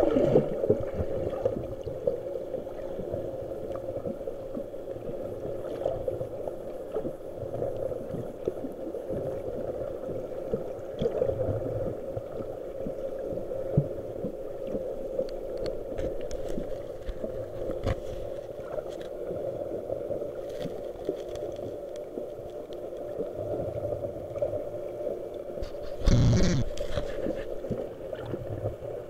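Underwater ambience heard through a submerged camera: a steady hum with a constant low tone and scattered faint clicks and crackles. About 26 seconds in, a loud gurgling rush of bubbles passes the microphone.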